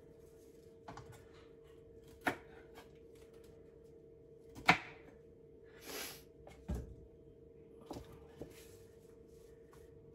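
Kitchen knife and celery stalks knocking on a wooden cutting board while the celery is trimmed: a handful of separate sharp knocks a second or two apart, the loudest about halfway through, with a brief rustle about six seconds in. A faint steady hum runs underneath.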